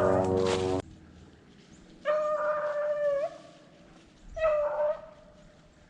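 Rabbit hound baying on a running rabbit's trail: two long bawls, the first just over a second long, the second shorter. Under a second in, a louder sound cuts off abruptly.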